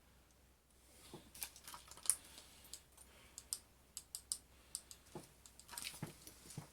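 A run of light, irregular clicks and taps, about a dozen or more, closer together near the end.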